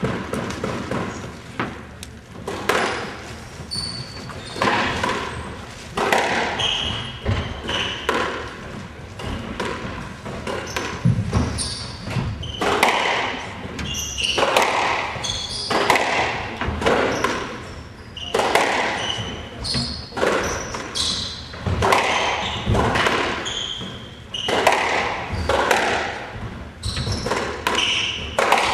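Squash rally: the rubber ball struck by rackets and smacking off the court walls in a quick run of sharp hits about a second apart, with sneakers squeaking in short high chirps on the hardwood floor, all echoing in the enclosed court.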